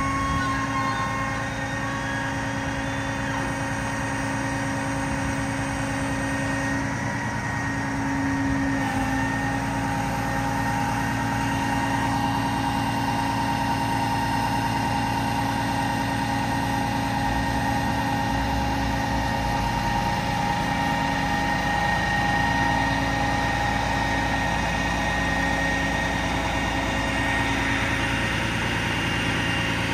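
Cat diesel engine of a Freightliner M2 running steadily, powering the hydraulics of a Stellar crane and Tireman tire manipulator as the boom moves. A steady whine rides over the engine and shifts pitch about nine seconds in.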